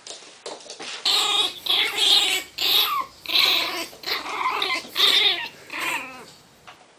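Miniature pinscher growling and barking in a string of about six short, angry outbursts, then falling quiet near the end: the aggressive warning of a small dog guarding its box.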